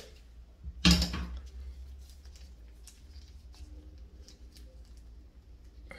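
Plastic caulk-removal tool scraping at old silicone caulk in a shower joint: one sharp scrape about a second in, then faint scratching and clicking, over a steady low hum.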